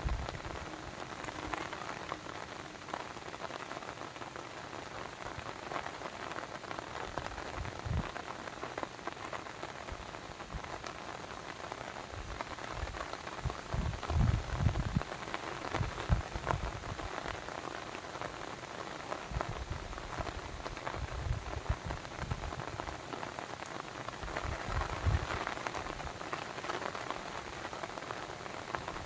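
Steady splashing water noise with irregular deep thumps every few seconds.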